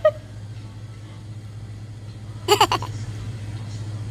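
A steady low hum, with a short burst of laughter about two and a half seconds in.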